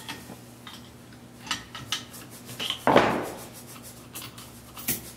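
Metal tools clicking and clinking against a CNC router spindle's collet nut as the router bit is loosened and taken out, with one louder clank about three seconds in. A faint steady low hum runs underneath.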